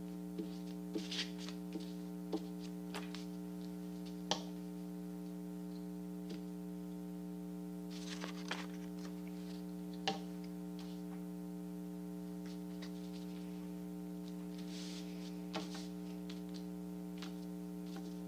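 Steady electrical mains hum under faint handling of construction paper and a glue stick being rubbed on it: a scatter of light taps and a couple of soft paper rustles.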